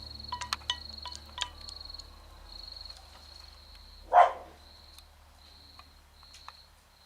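Insect chirping in repeated high-pitched trills with short gaps, over a low hum. A few sharp clicks sound in the first second or so, and one brief loud noise comes about four seconds in.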